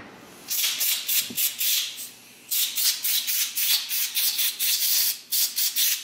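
Compressed air from an air blow gun, fired in a rapid series of short hissing blasts, about four or five a second, with a brief pause about two seconds in. It is blowing electrical contact cleaner out of the connector pins of an engine control unit.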